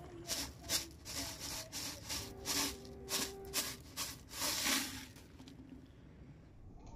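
Dry, crisp noodle-like snack pieces rattling and sliding in a plastic jar as it is shaken out onto concrete, a run of quick rasping bursts that stops about five seconds in.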